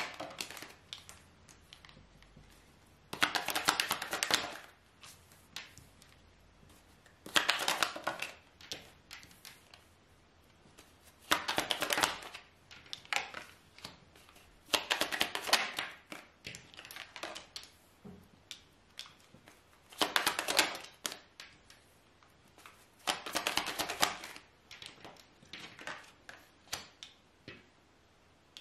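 A deck of fortune-telling cards being shuffled in six bursts of rapid card clicks, each about a second long and a few seconds apart, with small card taps and slides between them.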